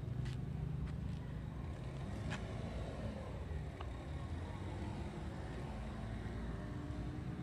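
Vehicle engine running low and steady with street traffic around it, and a few faint clicks in the first few seconds.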